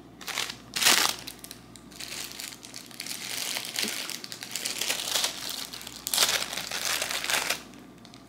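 Clear plastic packaging bag crinkling as it is handled and opened, with louder bursts about a second in and again for over a second near the end.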